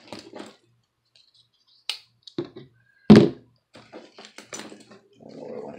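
Handling noises from a leather-and-canvas duffle bag and its hardware: scattered short clicks and taps, with one loud dull thunk about three seconds in.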